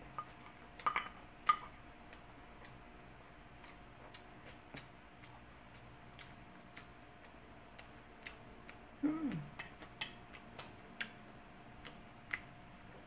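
Close-miked eating sounds: mouth clicks and chewing noises scattered through, with two louder clicks like a spoon against a dish about a second in. About nine seconds in comes a short low 'mm' that drops in pitch, over a faint steady background hum.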